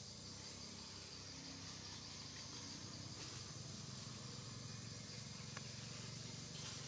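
Outdoor ambience: a steady high insect buzz over a low, steady hum, with a few faint clicks.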